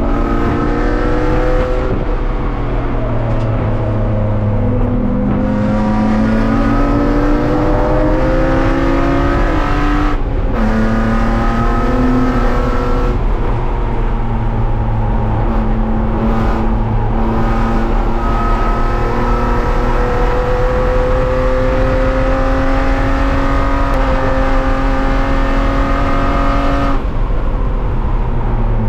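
BMW E36 race car engine heard from inside the stripped cabin, pulling hard on track. Its pitch climbs steadily, drops back at gear changes about ten and thirteen seconds in, then holds high through a long stretch before the driver lifts off near the end.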